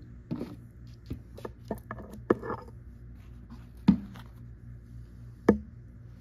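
Plastic toy dinosaur figures being picked up and lifted off a paper poster by hand: scattered light clicks, taps and rustles, with a few sharper knocks about two, four and five and a half seconds in.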